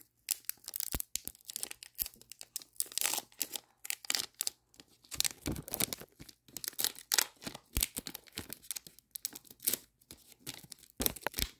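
Foil Pokémon booster pack wrapper being torn open and crinkled by hand: a long run of irregular sharp crackles and rips.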